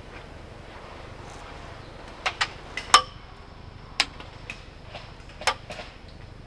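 Airsoft gunfire: five or six sharp single cracks at irregular intervals, starting about two seconds in, the loudest about three seconds in, over a low steady background hiss.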